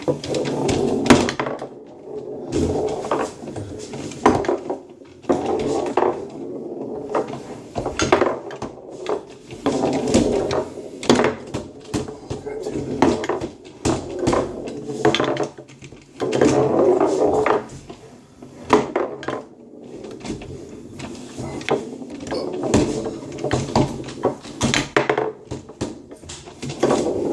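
Foosball game in play: the ball cracking off the players and walls of the table, rods sliding and clacking, and the ball rattling and rolling across the playfield, in a dense run of sharp knocks.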